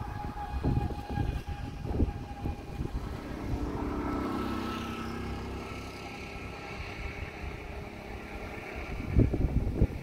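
A distant motor vehicle passing, its steady engine tone swelling to a peak about halfway through and then fading, with wind buffeting the microphone near the start and again near the end.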